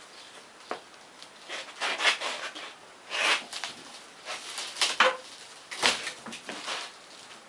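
Windshield cutter blade scraping and rubbing through the urethane bead around a windshield, in uneven strokes with short pauses between them.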